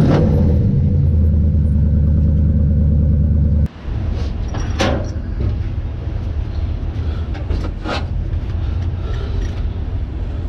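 Engine and road sound of a 1968 Dodge Charger stock car at highway cruising speed, a loud steady drone. About a third of the way in it cuts abruptly to a quieter, lower running note, with a few short louder noises over it.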